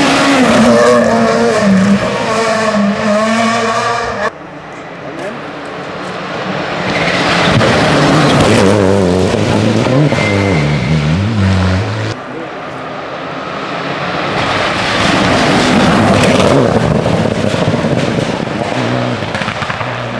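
Rally cars passing at speed one after another, their engines at high revs with the note rising and falling. The sound drops away suddenly about four seconds in and again around twelve seconds, before the next car builds up.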